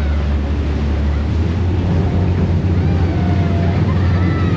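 Harbour ferry's diesel engines running with a steady low rumble over churning propeller wash at the stern; the low engine note changes about a second in as the ferry manoeuvres in beside a wharf.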